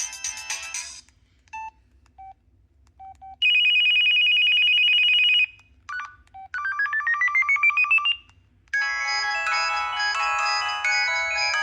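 Samsung SCH-A850 cell phone playing its preloaded ringtones in turn. A melody ends, a few short beeps sound, then a fast-pulsing two-tone electronic ring lasts about two seconds. A pulsed tone sweeps upward in pitch, and another many-note ringtone melody starts near the end.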